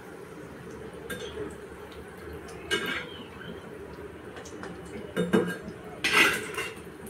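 Metal perforated slotted spoon (jhara) clinking and scraping against a metal kadhai while dal vadas are turned in hot frying oil: a few separate knocks, the loudest clatter near the end as the spoon is set down.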